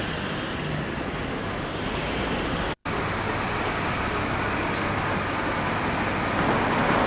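Road traffic noise. After a brief drop-out about three seconds in, a double-decker bus's engine is running as it drives slowly through the bus station, growing a little louder near the end.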